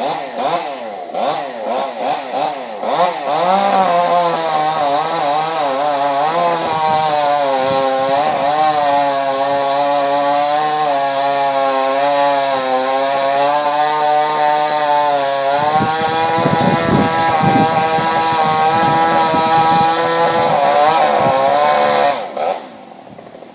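Chainsaw revved up and down a few times, then held at high speed, cutting into oak limb wood. It drops back off the throttle near the end.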